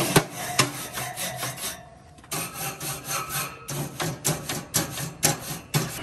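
Grill brush scraping back and forth over gas-grill grates, a rasping scrub of about two to three strokes a second with a short pause about two seconds in: the grates are being scrubbed clean of old residue.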